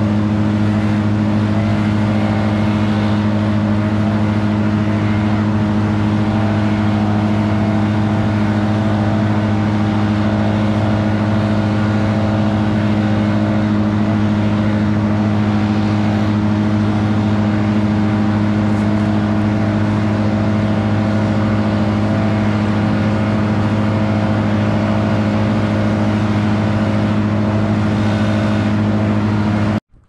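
A large engine running steadily at one constant speed, an even drone with no change in pitch, cutting off abruptly near the end.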